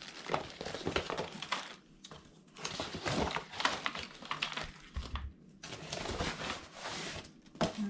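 Shoe rack parts being handled: pipes and fittings clicking and knocking together amid packaging rustle, in irregular bursts with brief pauses, and a dull knock about five seconds in.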